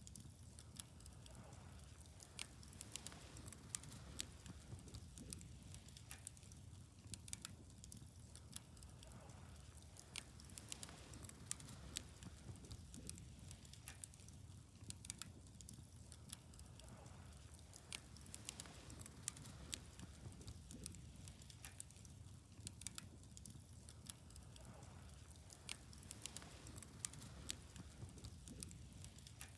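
Quiet wood fire burning, with frequent small crackles and pops coming at irregular intervals over a low steady rumble.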